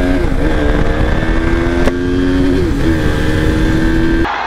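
Sport motorcycle engine accelerating hard, its pitch climbing steadily and dropping at two upshifts, just after the start and about two and a half seconds in. A sharp click near two seconds in, and the engine sound cuts off abruptly shortly before the end.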